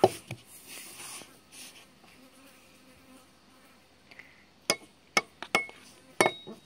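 A fly buzzing faintly with a steady low hum. A brief loud noise comes right at the start, and a few sharp clicks follow in the second half.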